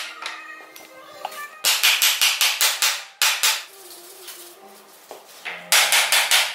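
Hammer striking a wooden block held against a wooden table-frame joint to knock the joint home: quick runs of sharp knocks, about five a second, the first run starting about a second and a half in, a short pair after it, and another run near the end.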